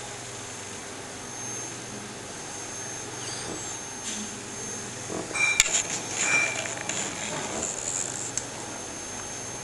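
Steady background hiss with a thin high whine, then from about halfway through a few seconds of handling noise: one sharp click among scattered small clicks and rustling.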